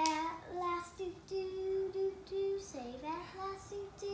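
A young boy singing, mostly short repeated notes on one pitch, with a swoop down and back up about three seconds in.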